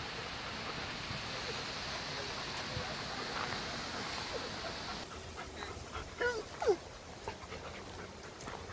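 Silver foxes whining and yipping in short, high, bending cries, the loudest a few seconds into the second half. Before them, a steady rushing noise cuts off abruptly about five seconds in.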